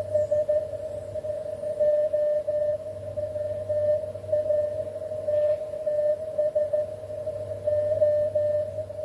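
Morse code (CW) from an Icom HF transceiver on the 20 m band: a single tone of about 600 Hz keyed in dots and dashes, over a faint low hum.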